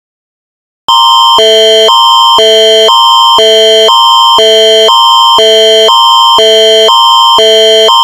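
Canadian Alerting Attention Signal (Alert Ready emergency alert tone), starting about a second in and sounding loudly. It alternates every half second between a high chord and a low chord.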